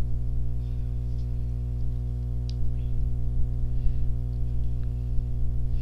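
Steady electrical mains hum with a faint click about two and a half seconds in.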